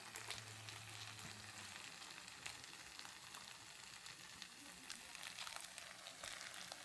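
Faint steady hiss with light scattered crackles, the kind of sound made by food sizzling or by flowing water.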